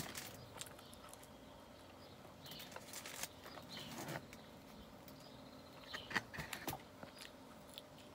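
Faint crackles and clicks of hands tearing and handling pizza crust over a cardboard box, with eating sounds. Short faint bird chirps come through now and then.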